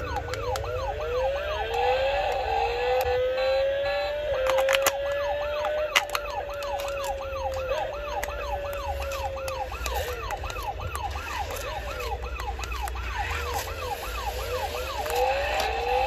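Electronic siren sound effect from a toy police motorcycle: a fast, rising wail repeating about three times a second over a lower tone that slowly rises and falls, with a few sharp clicks.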